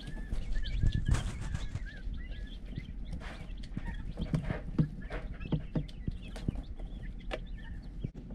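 Young tuxedo quail in a brooder peeping over and over in short, high calls, with clicks and rustling as they move about in the wood shavings.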